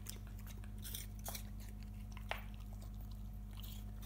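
A golden retriever puppy chewing pieces of apple, with irregular crisp crunches.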